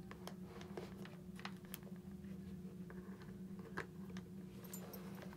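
Faint handling noise as a Bluetooth helmet speaker and its wires are worked into the helmet's speaker pocket: scattered small clicks and scuffs of plastic, with one sharper click a little before the end, over a steady low hum.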